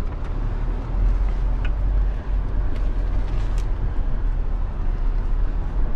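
Mahindra Thar's turbo-diesel engine and drivetrain heard from inside the cabin as it drives slowly over a dirt track: a steady low rumble with a few faint rattles and ticks.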